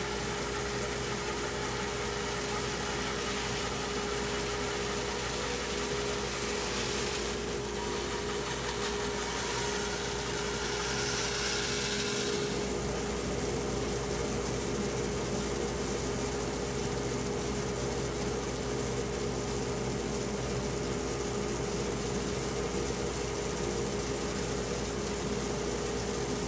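A machine motor running steadily at an even speed, with a brief hissier stretch about halfway through.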